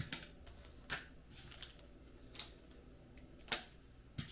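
Small parts of an RC light kit being handled: several irregular sharp clicks and taps of plastic and hardware.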